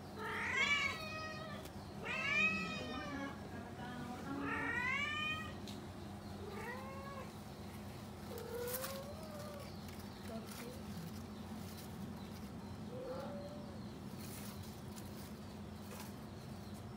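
Domestic cat meowing: three loud, drawn-out meows in the first five seconds, each rising and falling in pitch, then several fainter, shorter meows.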